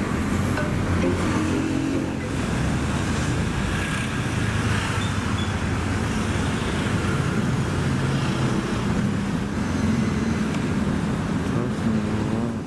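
Busy street traffic: motor scooter and car engines running and passing over steady road noise.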